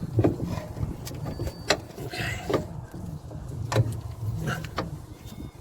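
Irregular metallic knocks and clunks, about half a dozen, as the car's front suspension parts are levered and bent back together to seat the hub on the lower control arm.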